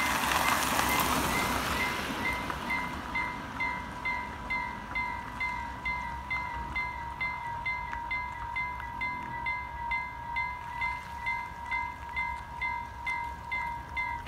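Vialis WMA electronic level-crossing bells ringing, a struck-bell tone repeated about one and a half times a second, while a car drives past in the first two seconds. The bells stop suddenly near the end, once the barriers are down.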